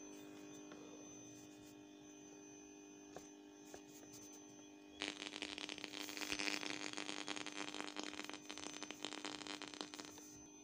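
Small portable FM radio's speaker giving a steady hum, then about halfway through a loud burst of hissing, crackling static lasting about five seconds.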